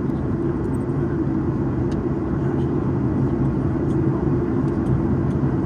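Steady cabin noise inside a Boeing 737 during its descent: a low drone of the jet engines and airflow, with a few faint ticks.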